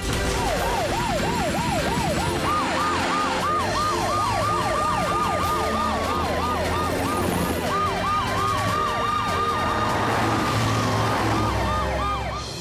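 Several cartoon rescue-vehicle sirens wailing together, rapid rising-and-falling sweeps overlapping one another, with one long held wail that slides down in pitch near the end.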